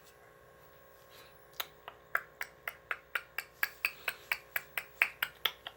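A rapid, even clicking, about four sharp clicks a second, starting a little over a second and a half in.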